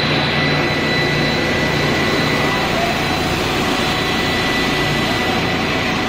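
Steady running noise of a breakfast cereal extrusion production line, its motors and conveyors running evenly, with a constant high-pitched whine over a low hum.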